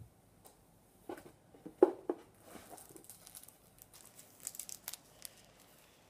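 A few soft knocks of items being handled, the loudest about two seconds in, then the crackly crinkle of a plastic-sleeved decal packet being pulled out and handled.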